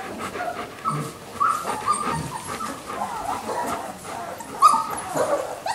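Three-week-old puppies whimpering in short, high squeaks that rise and fall, scattered through, with a louder squeak near the end.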